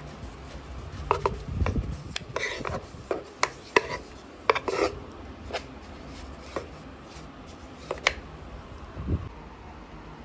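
A 5 cm flat paintbrush laying a first coat of white acrylic paint onto the bare wood inside a box: an irregular run of short brush strokes on the wood, which stop about eight seconds in.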